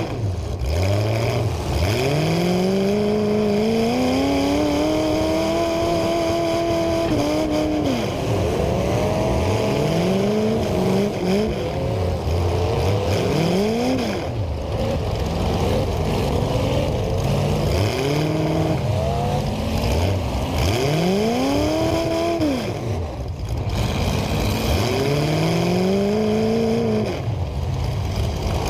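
Engines of several demolition derby cars revving up and falling back again and again, their rising and falling pitches overlapping.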